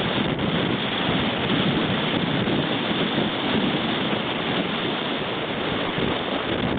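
Steady rushing noise of wind and surf, with wind buffeting the microphone.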